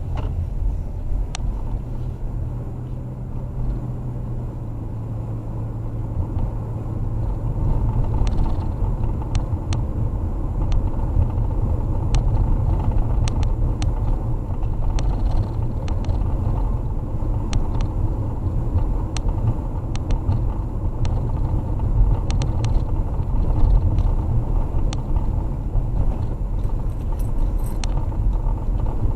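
Car driving, heard from inside the cabin: a steady low rumble of road and engine noise, with scattered light clicks.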